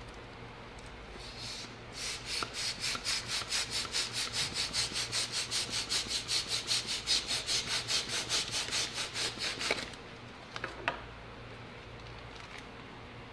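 Double-action (push-pull) hand air pump being worked fast to inflate a plastic air cushion bag. Air rushes through it in quick, even puffs, about five a second, because it pumps on both the push and the pull. The pumping stops about ten seconds in, followed by a couple of soft clicks.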